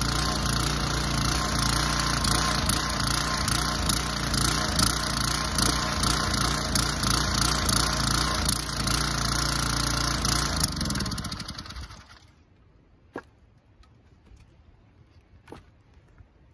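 Gasoline engine running steadily, then shut off, winding down and stopping about eleven to twelve seconds in. After that come two sharp knocks of split firewood pieces set onto the stack.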